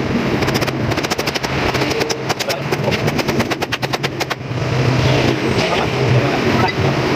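Rapid metallic clicking in runs, about ten clicks a second, from a hand tool worked at the steering stem of a Honda Click scooter while its steering head ball race is fitted. It stops a little past halfway. A steady low hum runs underneath and grows louder in the second half.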